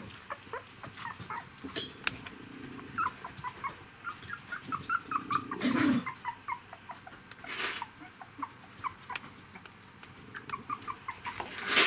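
Three-week-old poodle puppies squeaking and whimpering in rapid short, high chirps, several a second, with a louder burst about six seconds in and another near the end.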